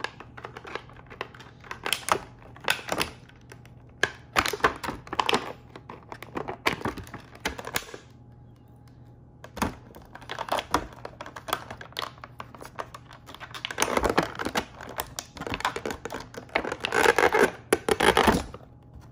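Stiff clear plastic toy packaging crinkling and crackling as it is handled and pulled apart, in uneven spells of sharp crackles. There is a short lull about eight seconds in, and the densest, loudest crinkling comes near the end.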